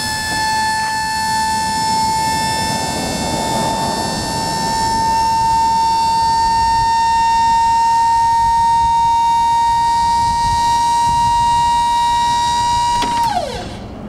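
Powered lift mechanism of a box stage truck's fold-down side wall running as the wall closes: a steady motor whine that creeps slightly up in pitch, then glides down and stops about 13 seconds in as the wall shuts.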